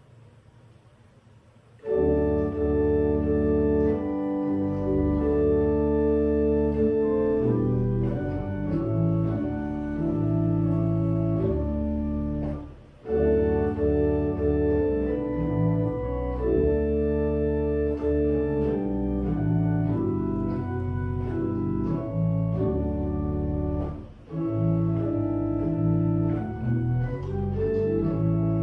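Organ music in slow, sustained chords, starting about two seconds in after a short quiet and pausing briefly twice between phrases: a closing voluntary after the service's final blessing.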